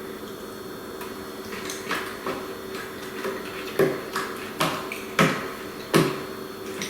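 Crunchy white-chocolate-dipped biscuit sticks being chewed: a run of sharp crunches, about one every 0.7 seconds, louder from about four seconds in.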